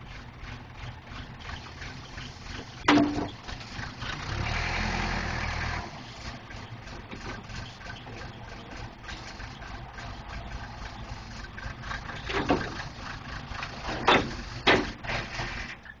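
Case 480C backhoe loader's engine running steadily. It gets louder for about two seconds starting around four seconds in. Sharp metal clanks sound about three seconds in and a few times near the end, and the engine sound falls away at the very end.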